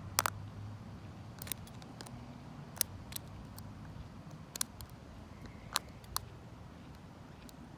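Lock picking in a vintage Lockwood 570 oval mortise lock: a short hook pick and tension wrench making about ten sharp, irregularly spaced clicks in the cylinder, over a low steady rumble.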